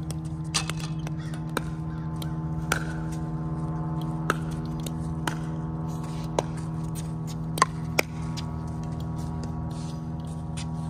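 Pickleball paddles striking a plastic ball in a rally: sharp pops about once a second, the two loudest in quick succession about three quarters of the way through. A steady low hum runs underneath.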